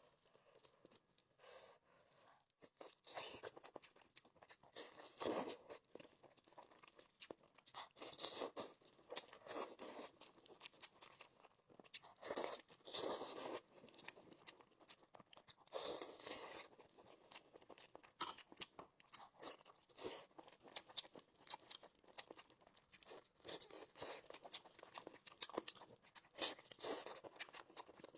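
A person chewing and crunching on chicken, in irregular bursts a second or two apart.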